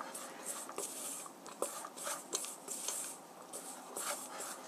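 Ground pork with potato starch and flour being stirred in a stainless steel bowl with a wooden utensil: soft, repeated scraping strokes a couple of times a second, with light clicks against the bowl.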